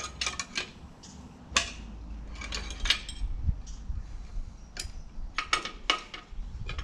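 Metal clicks and clinks at uneven intervals from hands and a spanner working at the blade bolt on a lawn mower's steel blade disc.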